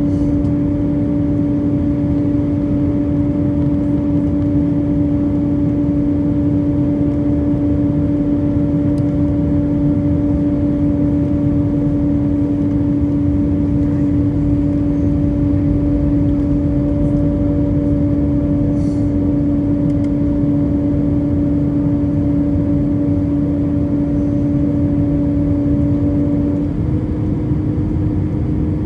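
Airbus A319 cabin noise in flight: a steady rush of air with a steady humming engine drone. Near the end the drone's pitch steps slightly, a change in the engines' note.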